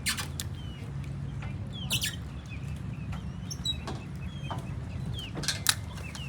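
Birds calling with short clucks and brief falling chirps, scattered every second or two over a steady low hum.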